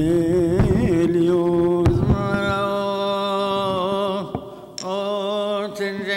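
Coptic Orthodox liturgical chant: voices chanting in unison on long held notes, breaking off briefly about four seconds in and then resuming.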